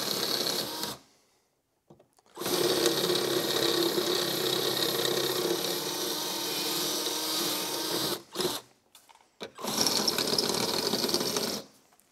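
Electric drill boring out the rivets that hold a snowmobile's running board, the bit cutting through the rivet heads. It runs in several goes: briefly at the start, then a long steady run, a short burst, and a last run that stops near the end.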